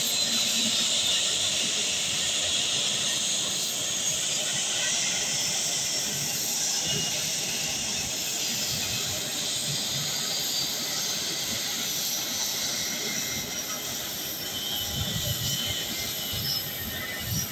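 Boeing 737's jet engines running at taxi power, a steady high whine and rush that slowly fades.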